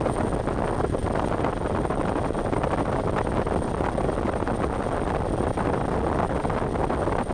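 Bell 412 helicopter's engines and rotor running steadily, a dense even noise with a faint high steady whine above it.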